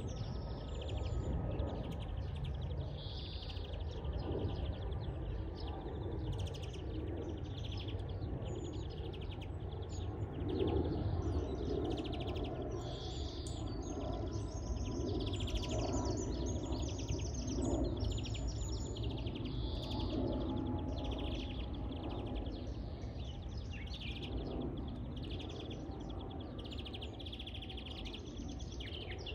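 European greenfinch singing in the wild: repeated twittering trills and phrases, over steady low background noise.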